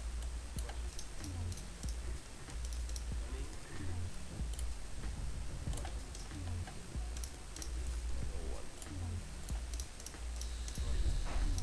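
Scattered clicks of a computer mouse and keyboard, irregular and light, over a low steady hum.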